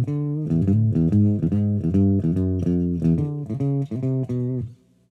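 Fender Esquire electric guitar played without overdrive through a Marshall 6100 amp, its pickup selector in the top 'dark circuit' position: a run of single notes with a dark, bass-like tone. The playing stops shortly before the end.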